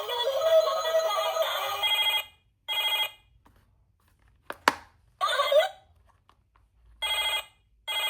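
Electronic toy sound chip playing a tinny synthesized tune that stops about two seconds in, followed by short bursts of ringing ringtone-like beeps with silent gaps and a single click in between.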